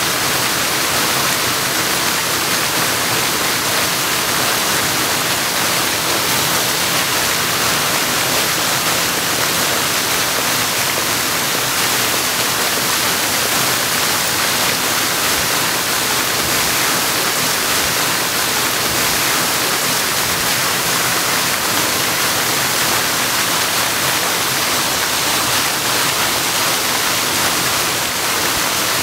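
Plaza fountain's water jets splashing into their basin: a steady rush of falling water.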